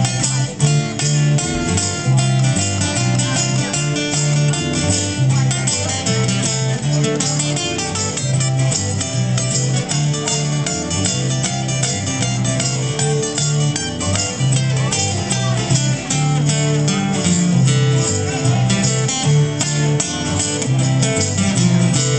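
Live band playing an instrumental passage of a song, led by strummed and picked guitars over a steady bass line, with no vocals.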